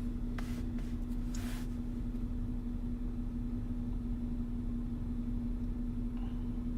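A 2010 Mercedes C350, switched on after its steering wheel lock repair, giving off a steady hum with one constant low tone. There are a few faint short clicks and rustles in the first two seconds.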